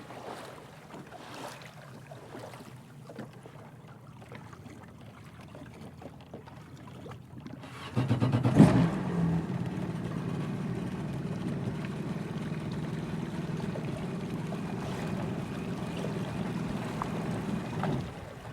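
Yamaha WaveRunner jet ski engine cuts out, leaving a quiet stretch with a few faint knocks, then restarts about eight seconds in with a sharp rev and settles into a steady idle.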